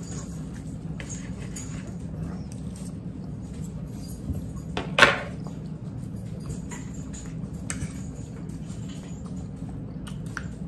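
Eating sounds at a table: metal forks clicking and scraping on plates in small, scattered taps over a steady low hum, with one brief louder sound about five seconds in.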